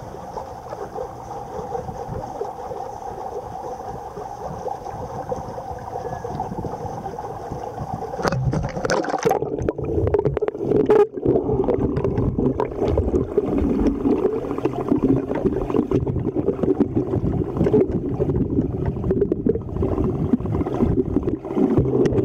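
Dog paddling in a swimming pool. A steady hum with light water sounds is heard above the surface until, about eight seconds in, a splash as the microphone goes under; after that, muffled underwater gurgling and churning from the paddling legs.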